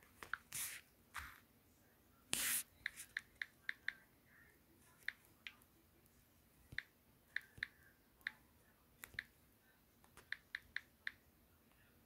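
Faint, irregular clicks of typing on a phone's on-screen keyboard, one tap per letter, coming in short runs with pauses between. A few short hisses come in the first three seconds, the loudest about two seconds in.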